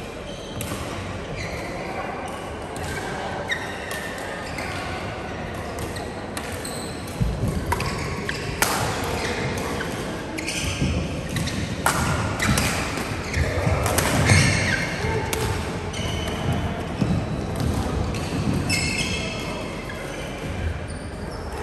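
Badminton play in an indoor hall: rackets striking the shuttlecock over and over, including hard smashes, with short high squeaks of shoes on the court floor. The hits come thickest in the middle of the stretch.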